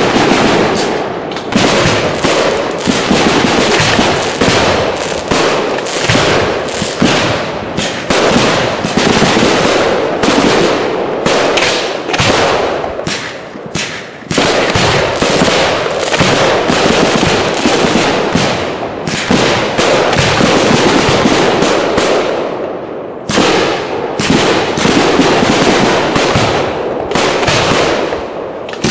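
Professional display fireworks going off in a dense, continuous barrage of bangs and crackle. The firing eases off briefly about halfway through and again past two-thirds, then builds back up each time.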